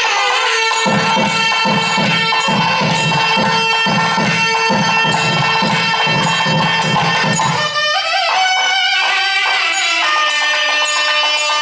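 Nadaswarams playing a melody in raga Shahana together over a steady shruti drone, with thavil drum strokes beating rapidly under them. About eight seconds in the thavil stops and the nadaswarams carry on alone.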